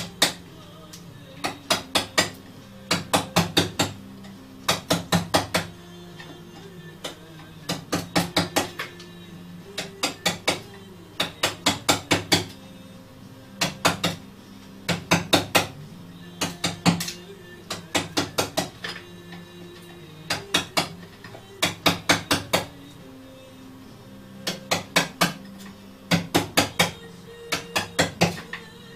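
Wooden mallet tapping a wooden drift against the wooden frame of a music box, in quick bursts of three to five sharp taps, a burst every second or two. Background music with low sustained notes plays underneath.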